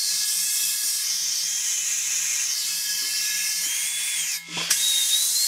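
Compressed air blasting from a blow gun through a hose venturi, a steady loud hiss with a thin whistle, drawing old dirt and residue out of a small engine fuel tank as an air-powered vacuum. The blast cuts off briefly about four and a half seconds in and then starts again.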